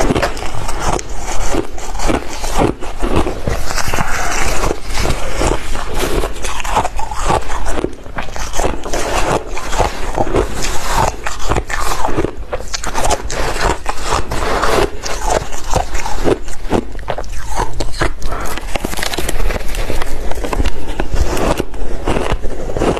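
Mouthfuls of soft crushed ice being chewed: dense, irregular crunching throughout, with a metal spoon scooping and scraping through the heap of ice.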